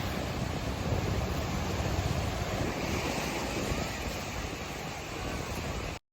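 Ocean surf washing onto a beach, with wind buffeting the microphone in low rumbles; the sound cuts off abruptly near the end.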